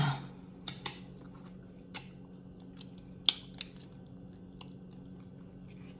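A handful of short, sharp mouth clicks and smacks from someone chewing close to the microphone, scattered a second or so apart, over a steady low hum.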